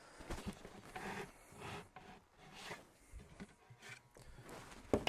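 Faint handling sounds of the toilet box's side panels: light rubbing and scraping with a few small knocks, and a sharper knock near the end.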